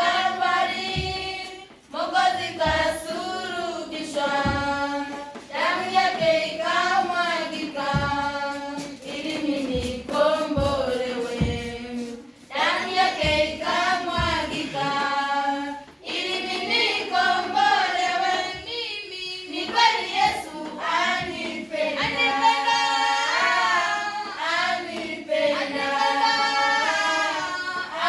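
A group of voices, children among them, singing a song together, with short low thumps keeping a beat under the singing.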